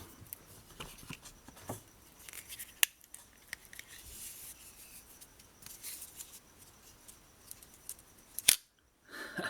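Cold Steel Extra Large Espada's blade slicing through paper in a sharpness test: faint scratchy cutting rustles and small clicks, with a single loud sharp click near the end.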